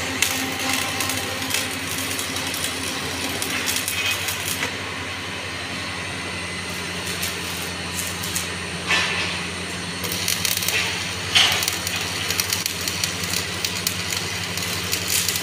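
Electric arc welding on steel: the arc crackles and sizzles for the first few seconds, stops for several seconds while loose steel rods clink, then strikes up and crackles again about ten seconds in. A steady low electrical hum runs underneath throughout.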